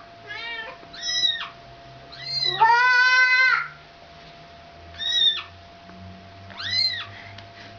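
Cats meowing: a series of short, high-pitched mews with one longer, lower meow about three seconds in, the loudest of them.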